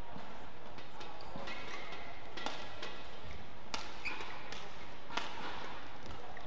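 Badminton rally: sharp racket strikes on the shuttlecock about once a second, over a steady hum of hall background noise.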